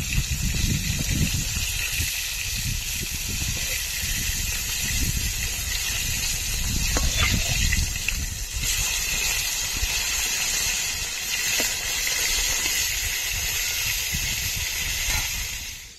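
Strong, gusty wind rumbling on the microphone over a steady sizzling hiss of koi fish frying in oil.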